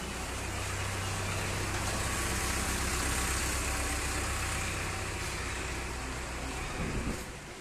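A motor or engine running steadily with a low hum and a broad rushing noise that swells and eases, then drops off suddenly near the end.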